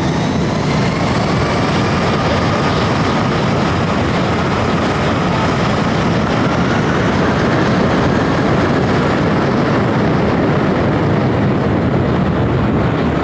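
Airliner engines at takeoff power behind the runway fence: a loud, steady roar of engine blast, with a faint whine slowly sliding in pitch during the first half. The blast's wind rushes past, strong enough to blow sand and knock a person over.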